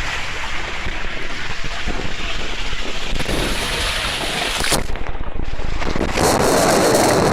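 Steady rushing noise of wind on the microphone, growing louder and fuller about six seconds in.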